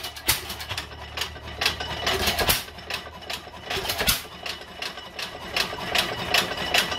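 New Holland hit-and-miss engine running just after starting: rapid mechanical clicking with a louder firing stroke every second or two. The governor holds the intake valve shut so the engine fires, speeds up, and coasts until it slows enough to fire again.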